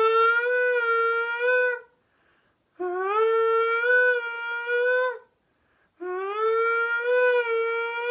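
A person imitating windshield wipers with their voice: long, hummed or squeaky vocal tones, each sliding up in pitch at the start and then held for about two seconds, repeated three times with a short pause between.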